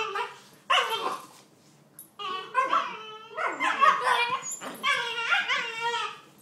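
Puppy barking: two sharp barks near the start, then from about two seconds in a run of whining, yelping calls that bend up and down in pitch.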